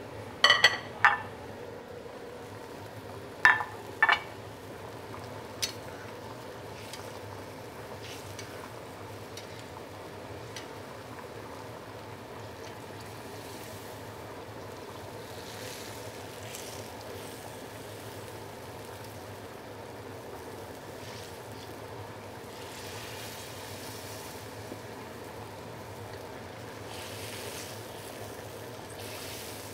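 Braising sauce bubbling and sizzling in a wok over a high gas flame as it reduces around a whole fish. A few sharp clinks of a metal spatula against the wok come in the first six seconds.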